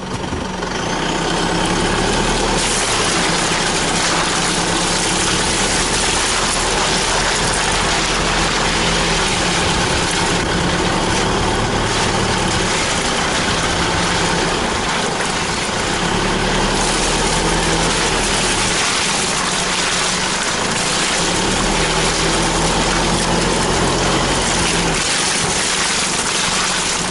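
Isuzu four-wheel drive's engine running steadily as it drives slowly along a muddy track, its note shifting slightly now and then, under a constant hiss.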